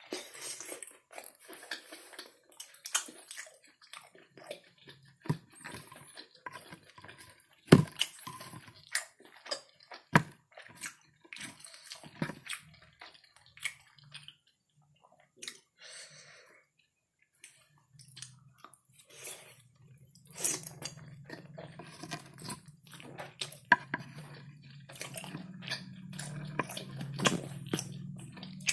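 Chewing and wet mouth sounds of someone eating kerupuk basah (temet), a soft steamed fish-and-sago cracker, with many short clicks and smacks and one louder click about eight seconds in. A low steady hum comes in about two-thirds of the way through.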